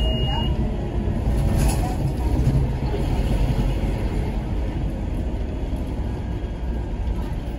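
Scania K230UB Omnilink bus under way, heard from inside the saloon: its rough-sounding 9-litre five-cylinder engine and ZF Ecomat automatic gearbox running steadily, over low road and body rumble.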